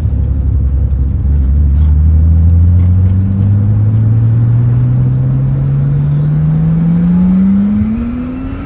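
Nissan RB25DET NEO turbocharged straight-six accelerating hard in one gear on its stock turbo at full boost, revs climbing steadily, then easing off near the end. Under boost it makes a sound the owner calls weird and wonders might be the turbo going out or a boost leak, though the car pulls fine.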